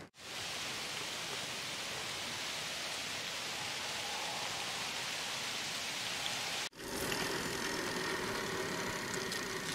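A small stream's water running with an even, rain-like rush. About two-thirds of the way through it cuts off sharply, giving way to the wind-and-tyre rush of a bicycle riding along a paved path.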